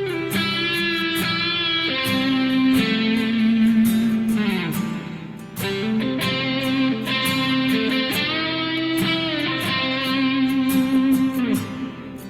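Guitar music: an electric guitar plays a melodic line with bent, gliding notes over held lower notes.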